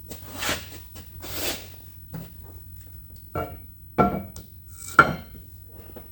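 Metal dovetail slide piece of a Zocca 500 shaper being handled and dropped into place: two scraping slides, then three sharp metal clunks with a short ring, the last the loudest.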